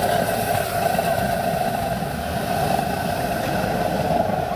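The burner of a 1910 Stanley steam car running, giving a steady rushing noise with no engine beat.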